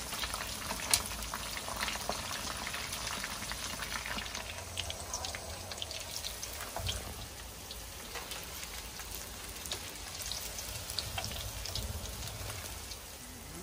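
Shrimp-and-pork balls wrapped in strips of spring-roll wrapper deep-frying in hot oil, nearly cooked through: a steady sizzle full of small pops and crackles, with one sharper pop about a second in.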